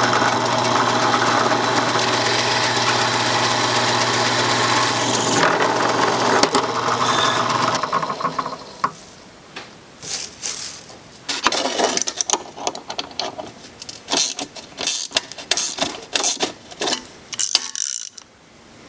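Benchtop drill press running and boring a hole through a white PVC plug: a steady motor hum with cutting noise that stops about eight seconds in. After that come scattered clicks and rattles of handling, as the plastic shavings are cleared and a metal air fitting is handled against the plug.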